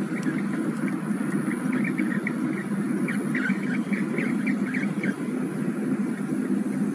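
Steady wind rumble on the microphone, with a run of short high chirps or squeaks during the first five seconds.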